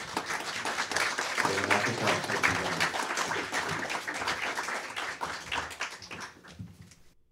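Live audience applauding, dying away and fading out near the end.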